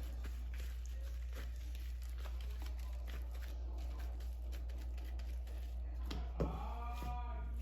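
Soft handling noises as raw ground beef is worked into patties by hand: light patter and crinkling over a steady low hum, with one louder knock about six seconds in.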